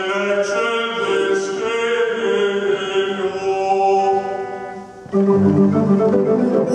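Klais pipe organ playing: a quieter line of held notes for about five seconds, then a sudden loud full-organ entry with deep pedal bass.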